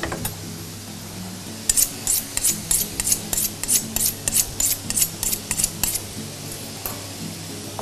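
A quick run of about twenty short, crisp cutting strokes, roughly five a second, starting a couple of seconds in and stopping about six seconds in, as food is cut while making tartar sauce. Faint background music runs underneath.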